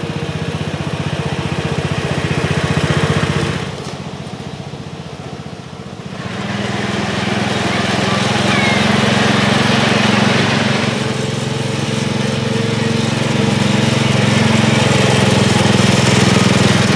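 Small engine of a ridable-scale diesel-outline locomotive running steadily as it hauls riders along the track. It drops away for a couple of seconds about four seconds in, then comes back louder.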